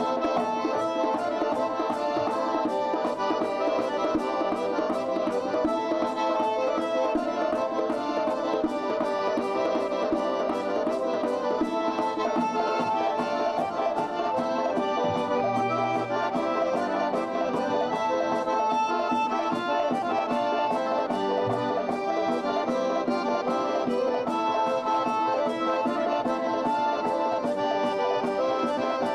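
Circassian folk dance music led by an accordion, playing a lively tune over a steady beat.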